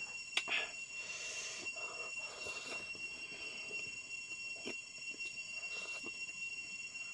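Mukbang eating sounds: a man chewing a mouthful of rice and noodles eaten by hand, with soft mouth and finger noises and a sharp click about half a second in. A steady high-pitched ringing tone runs underneath throughout.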